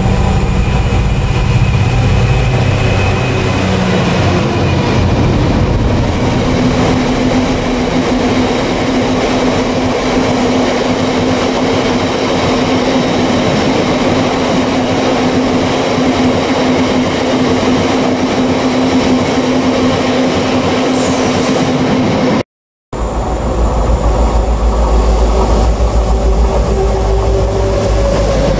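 Class 66 diesel locomotive passing at the head of a long freight train of box wagons: its engine is heard for the first few seconds, then the steady rumble and clatter of the wagons running by with a held hum. After a brief cut about 23 seconds in, a pair of class 66 diesel locomotives approaches, their engines loud and low.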